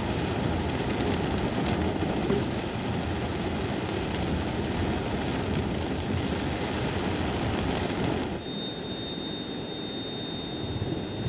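Heavy rain pelting a car's roof and windshield, heard from inside the car as a dense, steady hiss. About eight seconds in it cuts abruptly to a quieter hiss with a steady high-pitched whine.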